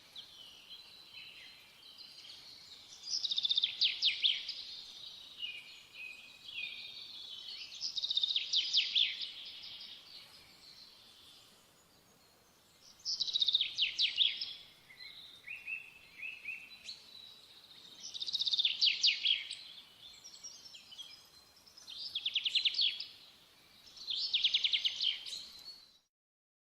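A songbird singing short, fast trilled phrases, repeated about every four to five seconds, with quieter twittering in between. The song stops shortly before the end.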